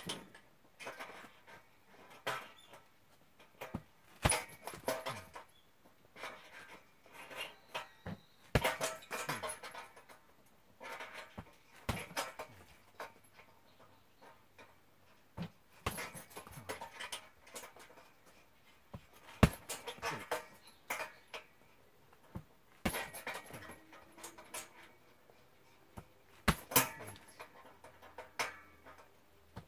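Boxing gloves hitting a hanging heavy punching bag: sharp thuds at irregular gaps of one to four seconds, sometimes two in quick succession, with the boxer's hard breathing between blows.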